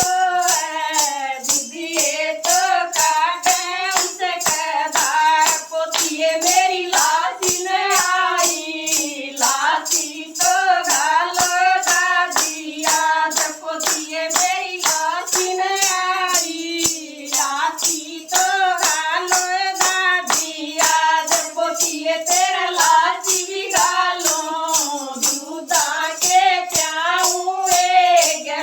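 A woman sings a Haryanvi folk bhajan in a high voice over a steady jingling, tambourine-like percussion beat of about two strokes a second.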